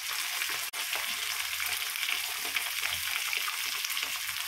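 Raw minced meat and liver sizzling in hot oil in a wok, freshly added onto browned onions; a steady, even hiss.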